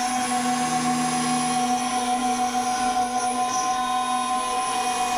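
Othermill desktop CNC mill's spindle running with a steady whine while a 1/8-inch flat end mill cuts a profile into aluminium plate, a hiss of cutting over several fixed tones.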